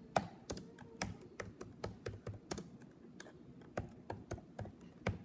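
Typing on a computer keyboard: uneven key clicks, several a second.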